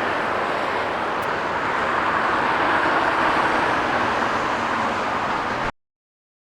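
Steady roar of a jet airliner's engines near LAX, swelling slightly midway, then cut off abruptly near the end.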